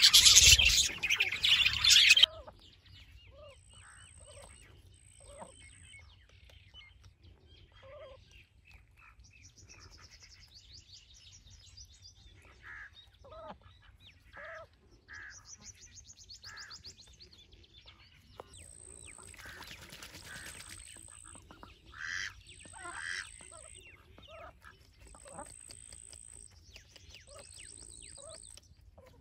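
Budgerigars chattering loudly for about two seconds, cut off abruptly. Then ducks give scattered short quacks, with small birds chirping and trilling now and then.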